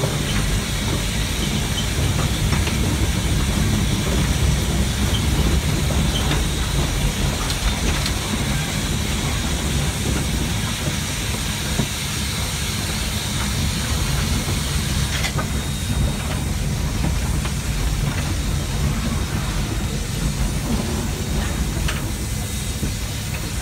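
Steam locomotive heard from inside its cab: a steady low rumble with a constant hiss of steam, and a few faint clicks.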